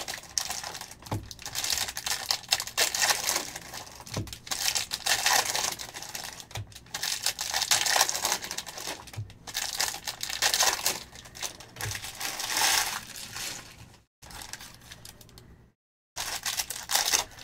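Trading-card pack wrappers crinkling and tearing as Panini Select football hobby packs are opened and the cards handled, an irregular rustle with small clicks. The sound cuts out briefly twice near the end.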